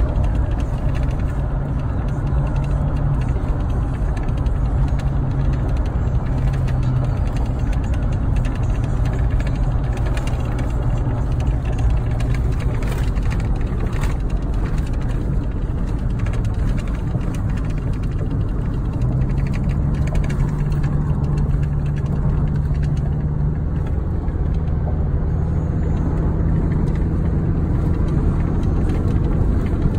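Car fitted with an aftermarket Borla exhaust cruising, heard from inside the cabin: a steady low exhaust drone over road noise. A little past halfway the drone fades briefly, then returns slightly higher in pitch.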